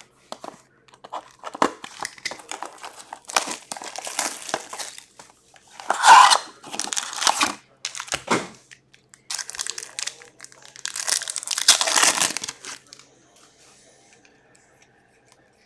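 Shrink wrap and foil hockey card packs crinkling and tearing as a card box is cut open and its packs are ripped open by hand, in a run of irregular rustles and rips.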